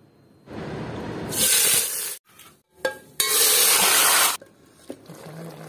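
Marinated meat sizzling in hot oil in a cooking pot: a loud hiss that comes in two strongest bursts, the second about a second long, each cutting off abruptly.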